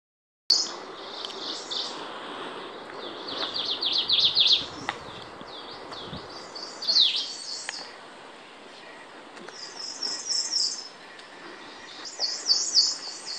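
Izu leaf warbler singing loudly, starting about half a second in: several separate phrases, each a quick series of high, falling notes, with a single loud down-slurred note around seven seconds in.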